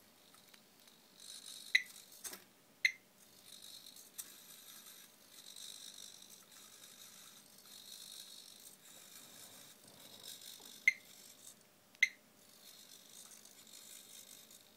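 Small servo motors of a homemade hexapod ladybug robot whirring faintly in short spells as it walks. Four sharp clicks cut through, two about a second apart near the start and two more about a second apart near the end.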